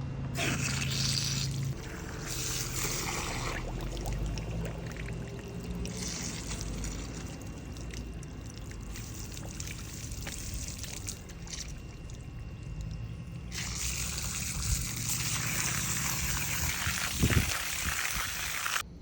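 Water being run through a Honda CRF450R dirt-bike radiator to flush it, pouring and trickling out in several stretches of changing strength. It cuts off abruptly just before the end.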